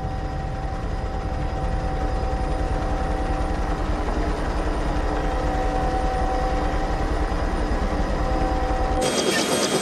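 Helicopter in flight: a fast, even low rotor beat under a steady whine from the engine and gearbox. About nine seconds in, the sound cuts abruptly to a helicopter heard close up, with a brighter rapid clatter and hiss.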